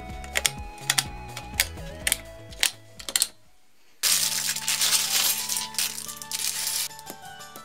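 Hard plastic LEGO bricks clicking as they are snapped together and set down, about a dozen sharp clicks in the first three seconds. About four seconds in, a plastic parts bag crinkles as it is torn open and a pile of LEGO pieces spills out onto the table with a dense rattling clatter lasting about three seconds. Background music plays throughout.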